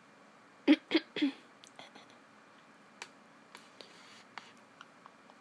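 Three short, loud bursts of a girl's voice close to the microphone, about a quarter second apart, followed by scattered light clicks and taps.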